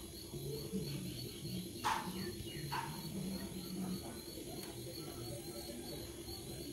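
Quiet ladling of ghugni curry from a karahi into a bowl, with two short clinks of the ladle about two and three seconds in. A faint steady high chirping runs in the background.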